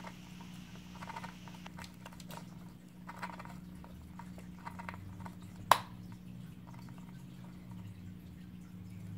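Lovebird's beak nibbling and tugging at a cotton rope perch: soft, scattered small clicks and ticks, with one sharper click a little past the middle, over a faint steady hum.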